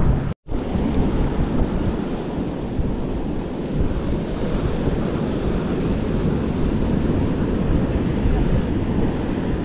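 Wind buffeting the microphone over sea waves washing against rocks, a steady rushing noise. A brief break in the sound just under half a second in.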